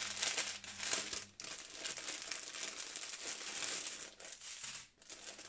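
Clear plastic bag crinkling and rustling as hands open it and pull out small packets of diamond painting rhinestones, with brief pauses about a second and a half in and near the end.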